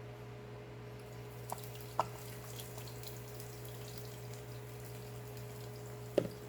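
Potatoes frying in oil in a covered pan, faint scattered crackling, with a few light taps and a steady low hum underneath.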